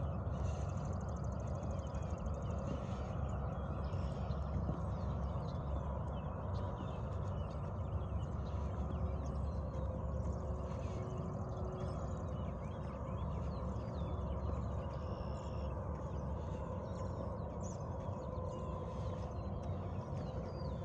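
Footsteps of a person walking outdoors, under a steady low wind rumble on the microphone, with faint bird chirps now and then.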